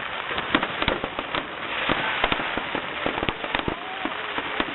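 Fireworks going off in quick, irregular bangs and crackles, many reports overlapping.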